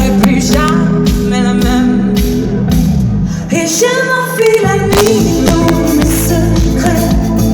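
Live pop-rock band with a female lead singer, drums and bass, recorded loud and rough from the crowd. The bass drops out for about a second midway, then the full band comes back in.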